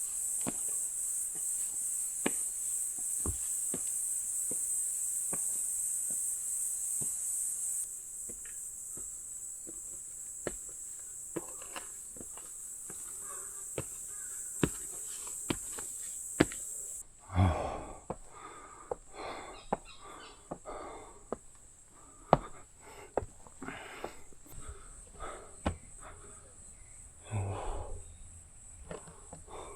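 A chorus of insects keeps up a steady high-pitched pulsing buzz. It is loud at first, drops about eight seconds in, and drops again about seventeen seconds in. Scattered sharp ticks run through it, and in the last third come scuffing and rustling noises.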